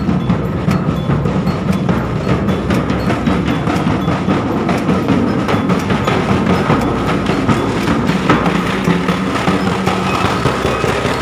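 Drum band of large stick-beaten drums playing a fast, dense rhythm with sharp clicking strokes.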